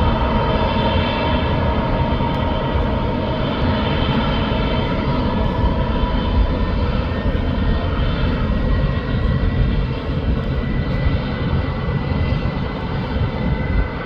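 Jet airliner's engines running, a loud, steady roar. A whining tone in it fades out about halfway through as a higher whine comes in.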